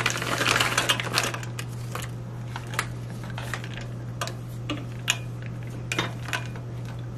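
Meltable chocolate wafers pouring from a bag and rattling into a small stainless steel pot for about a second and a half. Then a silicone spatula stirs the wafers, with scattered clicks and scrapes against the pot, over a steady low hum.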